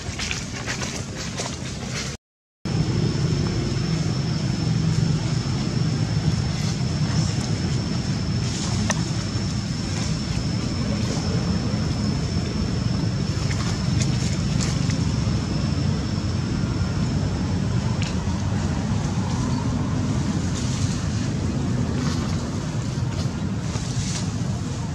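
Steady low rumble of outdoor ambience with a thin, steady high whine that stops about 18 seconds in, and a few faint clicks; the sound cuts out briefly about two seconds in.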